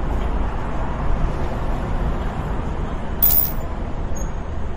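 City traffic ambience: a steady wash of road noise with a low rumble, and one short, sharp hiss a little over three seconds in.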